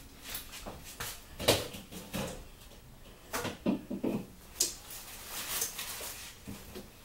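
Rummaging in an open refrigerator: items and containers being moved about on the shelves and door bins, making a series of short knocks, clunks and rustles scattered irregularly throughout.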